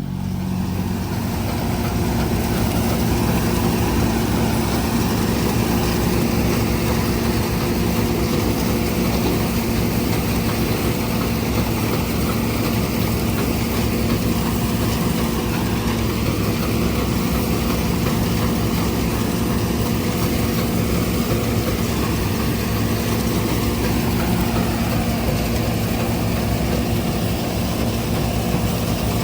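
John Deere combine harvester running steadily: a constant low engine hum under a broad, even mechanical rush, with slight slow shifts in pitch partway through.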